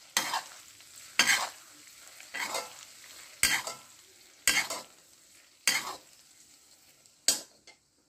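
Steel ladle stirring frothing butter and mustard oil in an iron kadhai: a scraping stroke of the ladle against the iron about once a second, over a faint sizzle of the hot, foaming fat.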